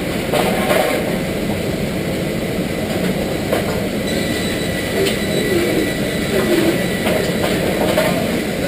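Weinig rip-saw line running with its dust collection on. It makes a steady machinery din with a thin whine, and scattered clicks and knocks come as boards move along the chain conveyors.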